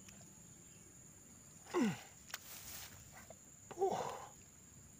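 Hands splashing and working in shallow muddy water at an eel hole, with a sharp click and short splash a little past two seconds in. Two short wordless vocal grunts of effort, the first falling in pitch, come about two and four seconds in, over a steady high drone of insects.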